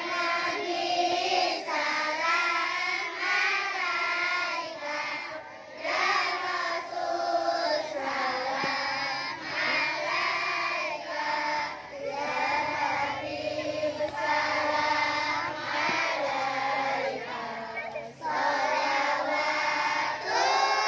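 A small group of children singing a sholawat, an Islamic devotional song praising the Prophet, together into handheld microphones, with long, wavering held notes.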